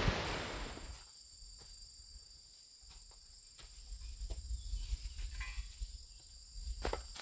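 Rain hiss fading out within the first second, then insects, likely crickets, chirring in a steady high-pitched drone, with a few faint clicks near the end.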